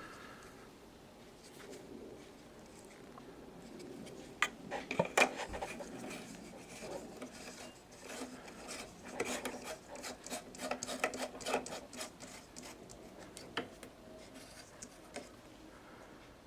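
Handling noises: rubbing and scraping with irregular clicks and taps, thickest about five seconds in and again between nine and twelve seconds.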